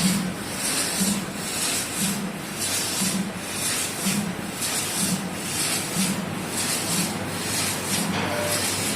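CNC sheet-metal laser cutting machine running: a rushing hiss of cutting and assist gas that swells and fades about once or twice a second as the head works through the cut.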